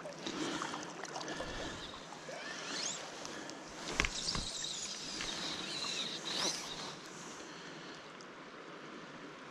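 Fly line swishing and zipping through the rod guides during a fly cast, with a sharp click about four seconds in, over the steady rush of a stream. The swishing stops about seven seconds in, leaving only the water.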